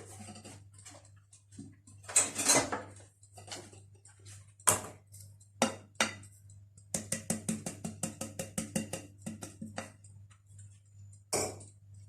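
Cake batter being moved from a mixing bowl into a cake tin, with scraping and scattered knocks of a utensil against the bowl and tin. Past the middle comes a quick run of light taps, about seven a second, lasting a few seconds.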